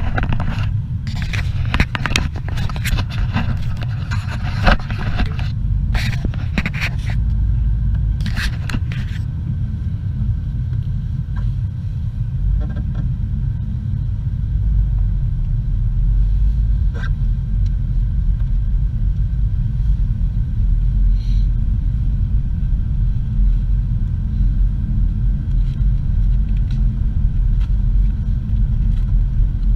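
Inside a moving vehicle's cabin: a steady low rumble of engine and tyre noise while driving on a snow-packed road. Brief louder noises come through during the first several seconds.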